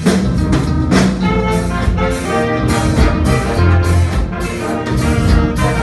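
Live band playing with a horn section of saxophones, trumpets and trombone, over a steady beat and strong bass.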